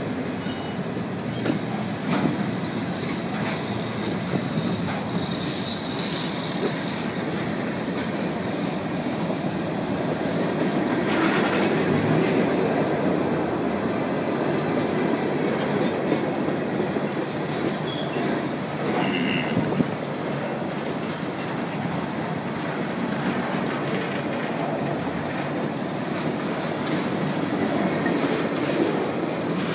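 Freight train cars rolling past, with a steady rumble and clatter of steel wheels on the rails and a brief faint wheel squeal about two-thirds of the way in.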